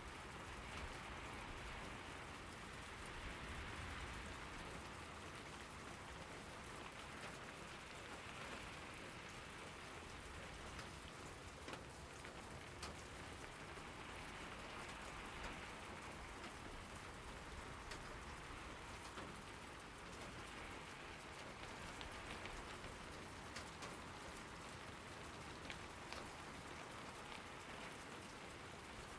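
Steady rain falling on surfaces, with scattered individual drops ticking.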